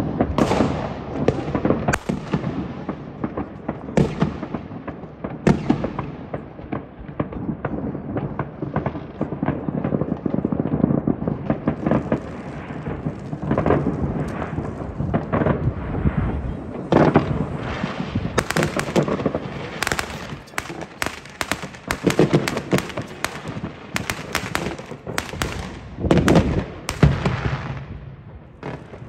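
Fireworks going off all across a town: a continuous barrage of overlapping bangs and booms. About halfway through it turns into dense rapid crackling.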